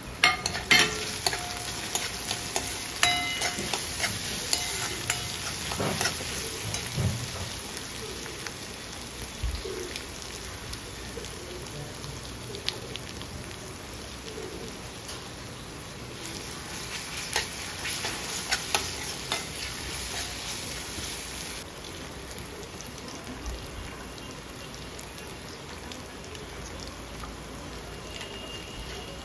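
Chopped vegetables sizzling in hot oil in a steel wok, with a steel ladle stirring and scraping them and clinking against the pan in bursts, densest in the first several seconds and again past the middle.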